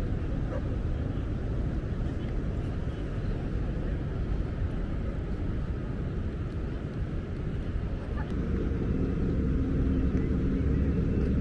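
Steady low outdoor rumble with no distinct events. Near the end, held low tones of background music fade in over it.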